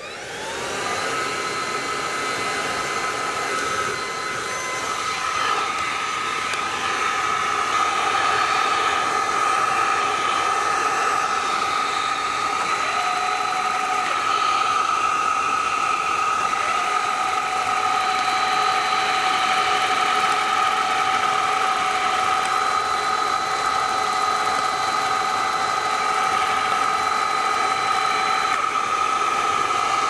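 Xiaomi G11 cordless stick vacuum cleaner switched on: its motor spins up quickly, then runs with a steady high whine over a rush of air. A second, lower tone joins a little before halfway and drops out near the end.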